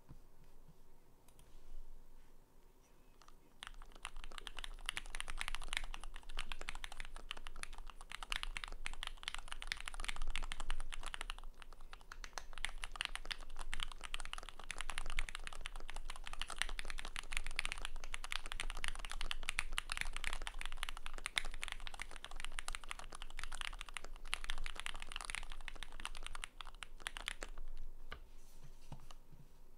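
Fast, continuous typing on a Keychron Q3 mechanical keyboard with lubed Gateron X linear switches in a steel plate, a dense run of key clacks. The typing starts about four seconds in and stops a couple of seconds before the end.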